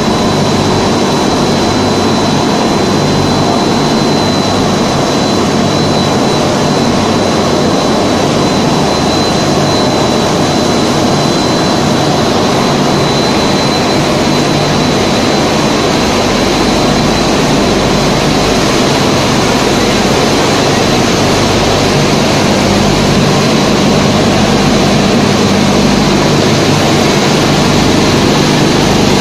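2D snack pellet extrusion production line running: a loud, steady machine drone from its motors, with a low hum and a thin steady high-pitched whine.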